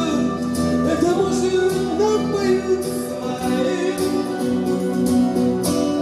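Live rock band playing an instrumental passage: an electric guitar lead line over a strummed acoustic guitar, with a steady beat.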